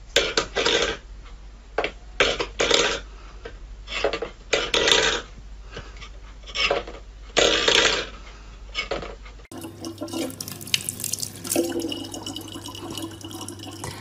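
A kitchen tap running a thin stream of water into a plastic bottle, a steady hiss with a low hum, starting about nine and a half seconds in. Before it comes a series of about a dozen short, noisy bursts.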